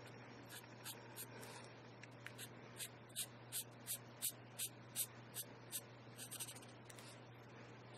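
Prismacolor marker tip rubbing on coloring-book paper in short back-and-forth colouring strokes, faint and scratchy. The strokes come quickly, about three a second, from about three seconds in to about six seconds. A steady low hum runs underneath.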